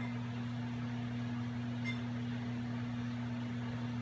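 Steady low electrical hum of a running appliance, with one faint click about two seconds in.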